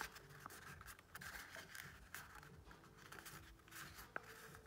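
Faint crinkling and small irregular ticks of folded origami paper as fingertips press it and push out its corners.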